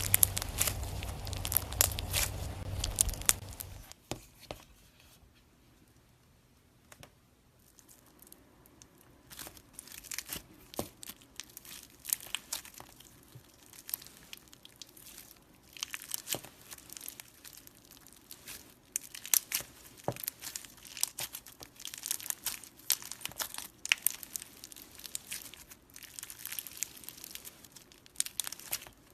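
Slime being squished and stretched by hand, crackling and popping with many small clicks. It is louder for the first few seconds, then turns quieter and crisper.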